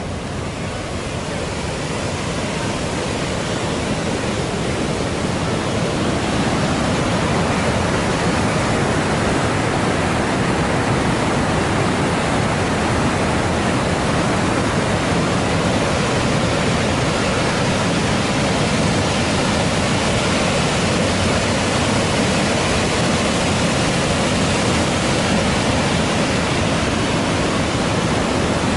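Temperance River rushing and falling through its narrow rock gorge, a steady rush of white water that grows louder over the first few seconds and then holds even.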